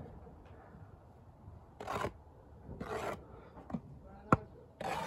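Brick trowel scraping mortar against brick: three short scrapes about a second apart, with a single sharp tap between the second and third.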